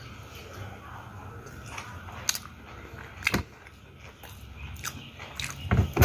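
A person chewing a mouthful of sushi with the mouth closed, with a few sharp clicks, the loudest cluster near the end.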